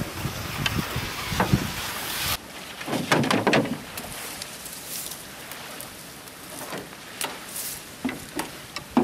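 Water splashing and dripping with light knocks on a canoe, broken irregular sounds with a brief busier patch about three seconds in. Wind rumbles on the microphone for the first two seconds and stops suddenly.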